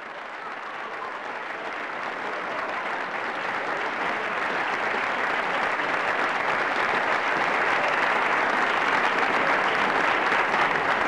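Applause from many hands, fading in and growing steadily louder, then holding level over the last few seconds.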